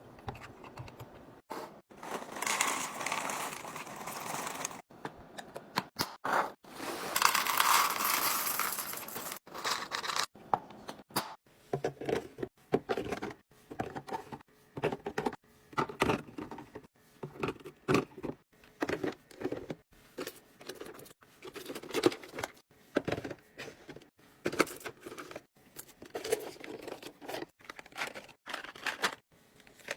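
Plastic packaging being torn open and crinkled, twice for a couple of seconds each, then a long run of short taps and clatters as packaged drinks and snacks are handled and set down in place.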